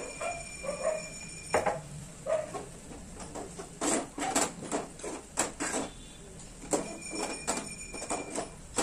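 A slotted steel spoon scraping and clinking against a metal pot in irregular strokes while noodles are stirred through thick, sticky sugar syrup.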